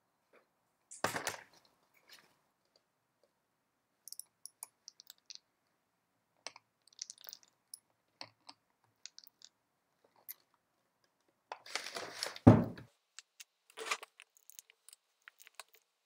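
Scattered clicks and light knocks of a hand tool working on a Bafang BBS02 mid-drive motor's plastic and metal housing, with a short rustle about a second in and one heavier thump around twelve and a half seconds in.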